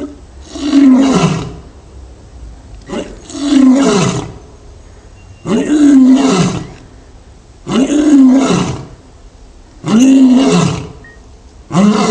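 Male lion roaring over and over, a long roar about every two seconds, each one rising then falling in pitch.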